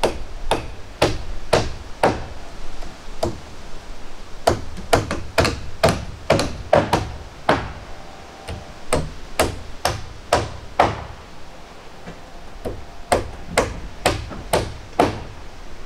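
Hammer blows on wood, one or two a second in uneven runs with a short pause about three-quarters through: nails being driven into the roof timbers of an old log cabin.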